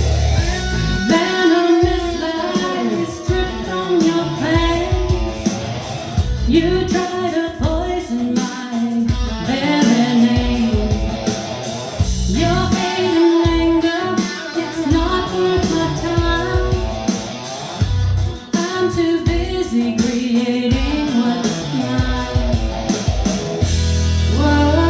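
A woman singing a song with guitar accompaniment; the voice comes in about a second in.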